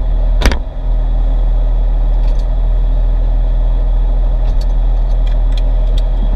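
A 2002 Porsche 911's flat-six engine running steadily, a loud, even low rumble. Two sharp knocks sound right at the start.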